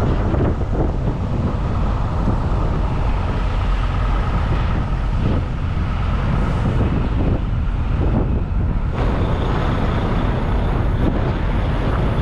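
Semi truck running down the road: a steady, loud low rumble of engine and road noise.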